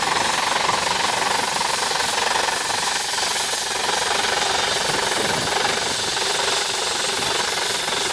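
Steam traction engine working under heavy load pulling a plough, its exhaust chuffing in fast, steady beats.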